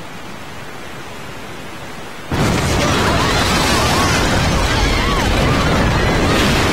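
Roar of a large waterfall, cut in suddenly about two seconds in and running loud and steady, with short rising-and-falling cries over it.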